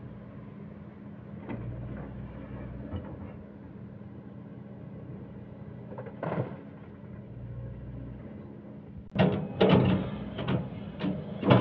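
SANY hydraulic excavator's diesel engine running steadily, with a loud knock about six seconds in and a run of heavy clattering knocks from about nine seconds in as the bucket handles coal while loading the dump truck.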